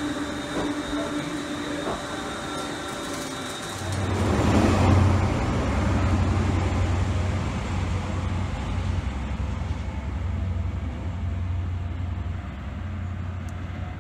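An electric multiple unit running past at a platform with a steady motor whine. About four seconds in this gives way to a High Speed Train's Class 43 diesel power car approaching, a steady low drone that is loudest just after the change.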